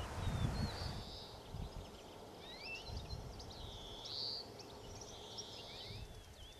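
Small birds singing in the open countryside: a busy mix of quick chirps, whistled glides and a few short trills, over low gusts of wind on the microphone.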